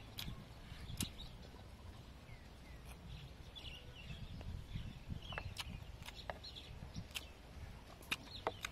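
Quiet eating sounds: a handful of sharp clicks as a wooden spoon works over a wooden plate, with small birds chirping in the background.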